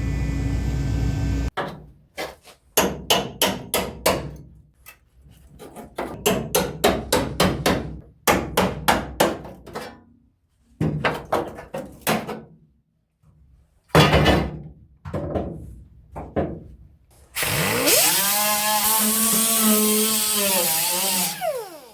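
Hammering on sheet-metal bodywork during rust patch repair, sharp strikes in quick runs of several a second, then an angle grinder that spins up, runs for about four seconds and winds down.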